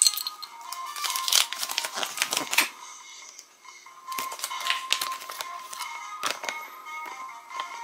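Crinkling of a small clear plastic toy bag and a folded paper leaflet being unwrapped from a Kinder Surprise capsule, in three short bouts, over faint background music.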